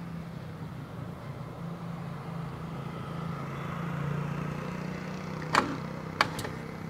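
Three sharp clicks late on, from a start attempt on a 2020 Harley-Davidson Fat Boy 114 whose battery is too weak to turn the engine over. A steady low hum runs underneath.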